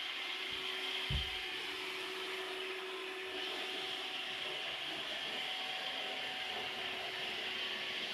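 iRobot Roomba robot vacuum running, a steady whirring hum of its motors and brushes, with a short low thump about a second in.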